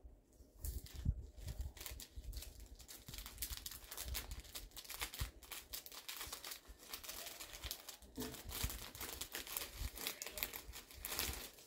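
Clear cellophane wrapping sheet crinkling in quick, irregular crackles as it is handled and folded around a rose stem.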